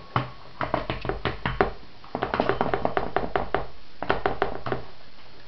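Rapid light clicks and taps on a stainless steel colander as a baby mouths and handles its rim, in three bursts with short pauses between.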